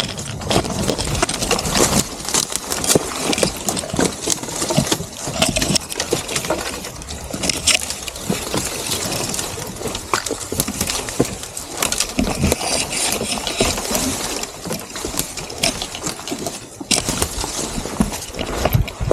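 Footsteps scuffing and crunching up a steep trail, with gear rustling and knocking, in a dense, irregular run of scrapes and knocks.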